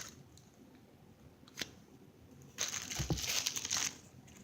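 Plastic squishy wrapper crinkling as it is handled and opened, for about a second and a half after a quiet start, with a soft bump in the middle of it.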